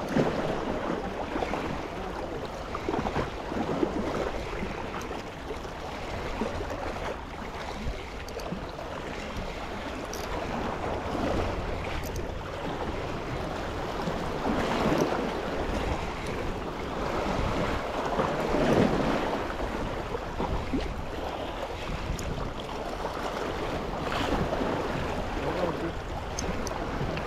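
Sea waves washing in, a continuous rush that swells and eases every few seconds, with wind rumbling on the microphone.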